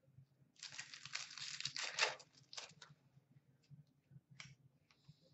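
Hockey card pack wrapper being torn open and crinkled for about a second and a half, followed by a few short rustles and clicks as the cards are handled.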